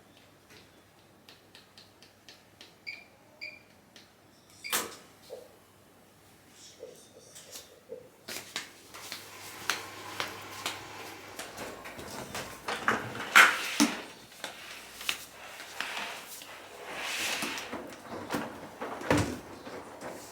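Household handling noises: a few faint clicks and a single knock over the first several seconds. From about eight seconds in come busier rustling and clattering, with several sharp knocks.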